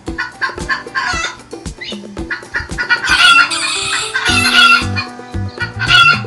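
Chickens clucking, then a rooster crowing in long calls about halfway through, over background music with a steady beat.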